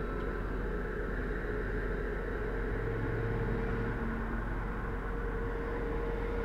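Steady road and engine noise of a car driving along a highway, heard from inside the cabin: an even rumble and hiss with a faint steady hum.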